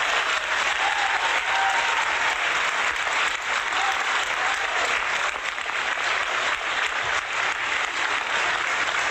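Crowd applauding: dense, steady clapping from many hands that starts suddenly and holds level throughout.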